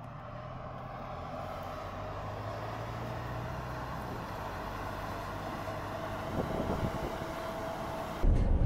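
Mercedes-Benz eActros electric truck driving along: steady tyre and road rumble with a faint even whine, growing slowly louder. Near the end it changes abruptly to a much louder low rumble.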